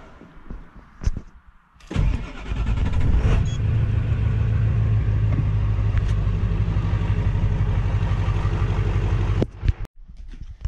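An engine starts about two seconds in, picks up briefly, then runs steadily with a deep low hum before cutting off suddenly near the end.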